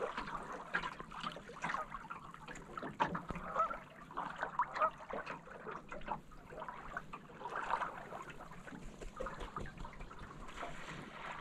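Geese honking and calling in short, irregular calls over small waves lapping and trickling against the canoe's hull.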